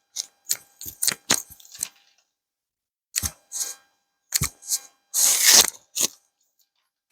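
Wrist joints clicking and popping as the wrist is rotated and manipulated in a chiropractic carpal tunnel adjustment: a string of short sharp clicks, a pause, then a few more, with a brief rustle about five seconds in. The clicks are the catching in the wrist that shows up when it is rotated during the examination.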